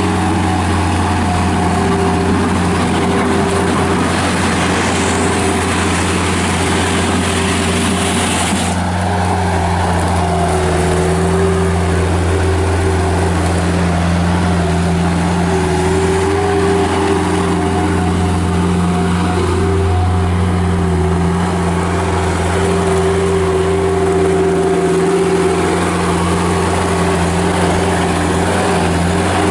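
Bobcat 751 skid steer loader's Kubota diesel engine running steadily at a constant speed. A hiss laid over the engine cuts off suddenly about eight seconds in.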